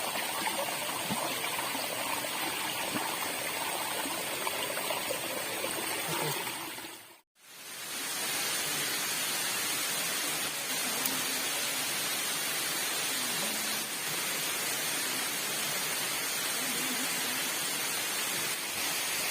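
Steady rush of water from a waterfall about ten metres high, an even hiss. It fades briefly to silence about seven seconds in and comes back just as before.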